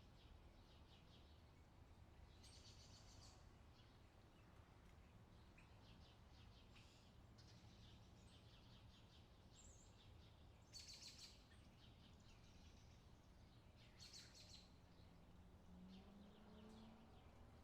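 Faint outdoor ambience: songbirds calling in short phrases of rapid repeated chirps over a low, steady background rumble. The two loudest phrases come about two-thirds and four-fifths of the way through.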